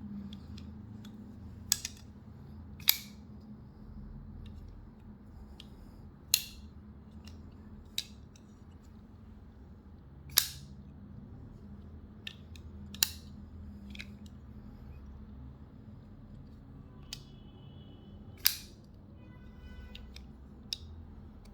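Zero Tolerance flipper knife on a ceramic-bearing pivot being flipped open and closed again and again: a sharp click each time the blade snaps out and locks or snaps shut, about a dozen clicks a second or more apart.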